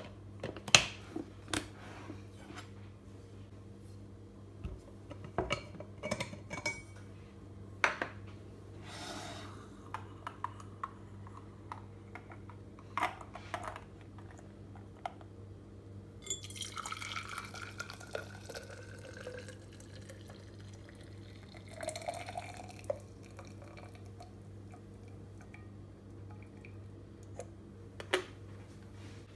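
Clicks and knocks as the snap-lock lid is clipped onto a glass food container and metal lids are handled. Then liquid is poured into a stainless steel tumbler, rising in pitch as it fills, twice, followed by a few light knocks near the end.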